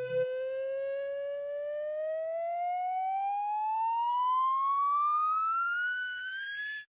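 Slide whistle sliding up in pitch in one long, steady rise, cutting off suddenly at the top.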